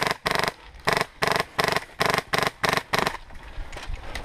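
HPA airsoft RPK (CYMA RPK with a Wolverine Inferno Gen 2 engine) firing about nine short rapid bursts in quick succession, stopping about three seconds in.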